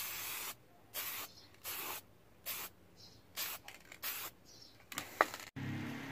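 Aerosol spray-paint can sprayed onto a sheet-metal cover in a series of short hissing bursts, about one a second, each under half a second long.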